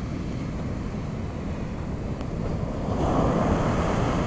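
Ocean surf washing up the beach, with a wave breaking and getting louder about three seconds in. Wind is rumbling on the microphone.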